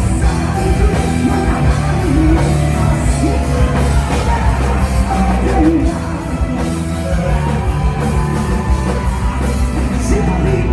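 Rock band playing live, with drums, bass and electric guitars under a lead singer.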